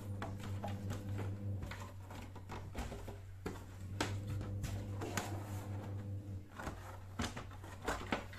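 Screwdriver and hands working on the plastic back cover of a flat-screen TV, loosening the screws and lifting the cover: scattered clicks, taps and knocks of plastic and metal, over a steady low hum.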